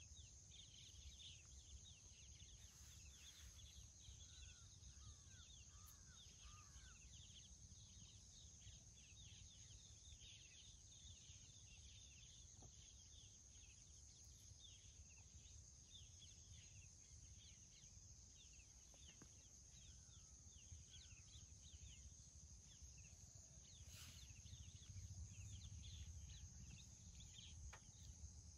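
Faint forest ambience: many small birds chirping over a steady high-pitched insect buzz, with a low rumble underneath.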